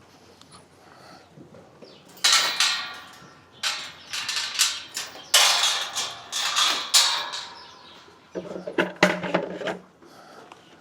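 Several bursts of rattling and clanking knocks, like metal things being handled and set down.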